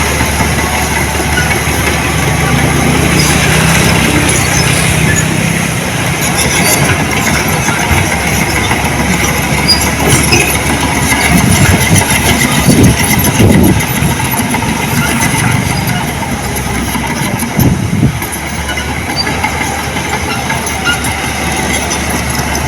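Heavy earthmoving machinery running: a diesel engine working steadily, swelling a few times around the middle.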